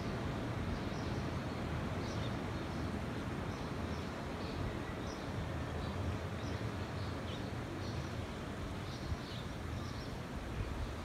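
Morning outdoor ambience: a steady rushing noise of wind with birds chirping on and off throughout in short, high calls.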